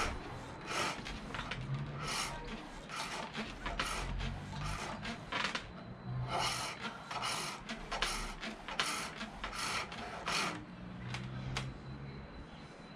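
A pole lathe turning green silver birch: a chisel cuts the spinning billet in short bursts of shaving, about two a second, one for each down-stroke of the treadle. The cuts pause briefly about halfway through and thin out near the end.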